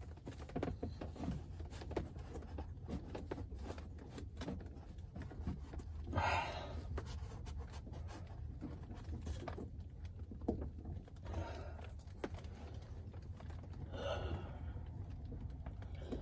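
A man breathing hard with several heavy exhales while straining at work, the loudest about six seconds in. Small clicks and scrapes from handling parts run between the breaths.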